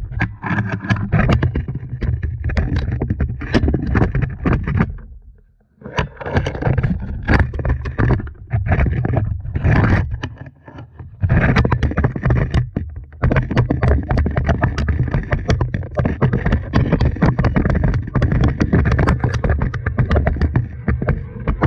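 Pole-mounted camera scraping and knocking against the rock wall of a narrow drilled well shaft as it is lowered, many small scrapes and knocks over a low rumble. There is a brief lull about five seconds in.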